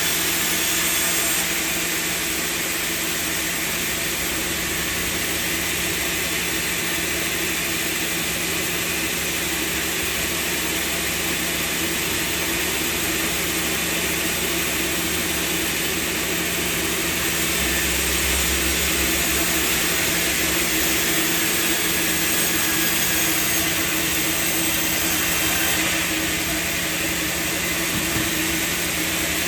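Sawmill machinery running steadily: a loud, even mechanical drone with a constant hum under it. A deeper rumble swells for a few seconds about eighteen seconds in.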